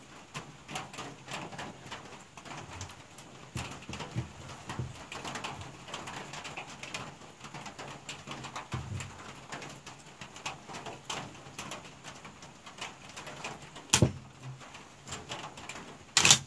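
M1 Garand rifle fired once: a single sharp shot about fourteen seconds in, followed about two seconds later by a second, longer loud noise.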